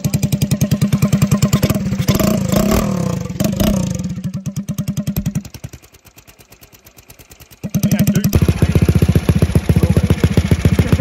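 Small two-stroke moped engine with a freshly fitted 90cc cylinder kit running, with a fast, even exhaust beat. It drops back to a quiet low idle about halfway through, then picks up and runs loud again near the end.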